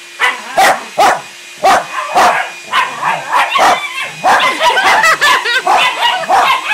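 Dog barking and yipping in play, a quick run of sharp barks that come thicker from about four seconds in.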